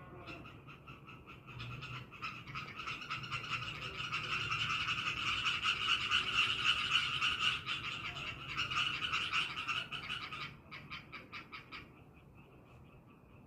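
A frog giving a long, rapid pulsed trill that swells to its loudest in the middle, breaks off briefly near the end, then trails off in weaker pulses.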